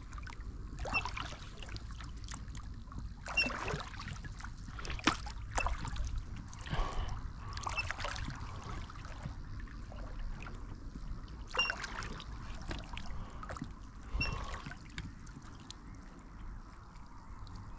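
Oars of a small inflatable boat being rowed: uneven strokes every two seconds or so, with water splashing and dripping off the blades and a brief squeak on several strokes.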